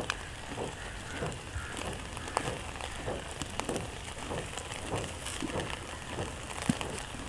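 Skewered chicken sizzling over hot charcoal, with scattered crackles and pops as oil and juices drip onto the coals.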